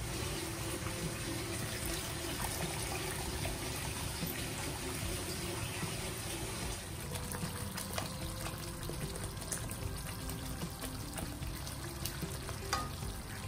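Curry sauce sizzling and bubbling in a wok, with a thin stream of liquid poured in partway through and a few light spoon clicks near the end.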